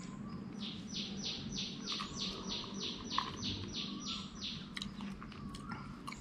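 A bird calling a rapid series of about fourteen short, falling high notes, roughly three a second for about four seconds, over a faint steady low hum.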